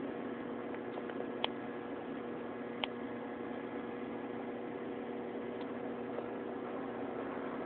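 Steady hum and hiss of a metro station platform's background noise, with two short sharp clicks about one and a half and three seconds in.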